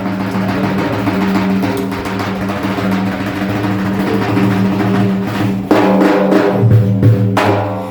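Devotional Sufi madih music between sung verses: drums beating over a steady low held tone, getting louder about six seconds in.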